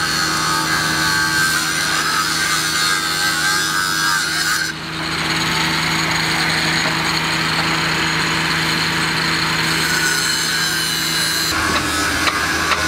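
Handheld power saw cutting into the road surface, a steady loud grinding whose pitch shifts a little under five seconds in, over a constant engine hum. The cutting stops about 11 seconds in, leaving the hum and a few sharp metallic clicks.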